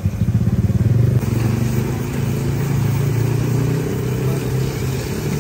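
An engine idling close by with a steady, fast-pulsing low rumble. About a second in, a hiss of fish frying in a wok of hot oil joins it.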